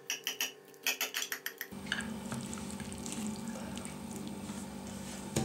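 A knife and a metal spatula cutting and scraping in a glass baking dish of hot, freshly baked casserole. A quick run of small clicks comes in the first second and a half. A soft steady hiss of the casserole still bubbling follows, with one knock near the end.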